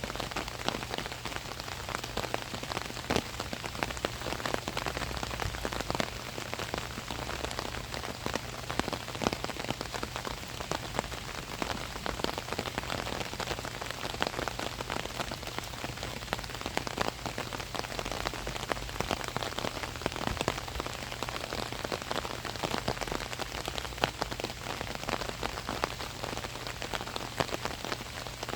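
Steady rain falling on an umbrella overhead: a dense, irregular stream of sharp drop hits on the canopy over a continuous rain hiss.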